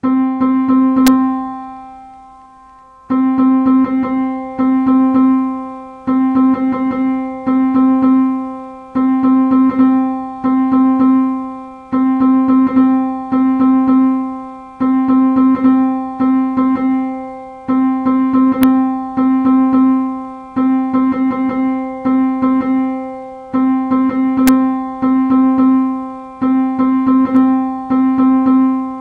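A single sampled keyboard note, a middle C from a wav file, played over and over by a Python script through pygame's mixer. It sounds once and dies away over about three seconds, then the same note is re-struck several times a second in uneven runs, each run fading before the next.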